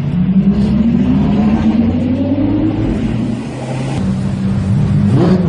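Lamborghini supercar engine revving in slow traffic: its note climbs gradually for about three seconds, falls back and holds briefly, then is blipped up sharply in quick revs near the end.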